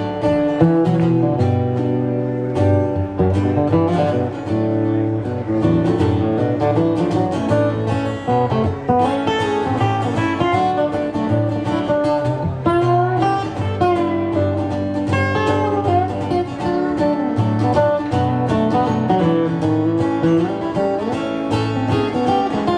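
Instrumental break of a country-folk song played on acoustic guitar, strummed chords under a picked melody line, with no singing.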